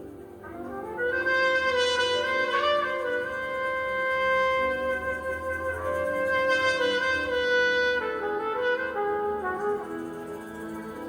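Trumpet playing a slow worship melody in long held notes, coming in about a second in over a quiet musical backing.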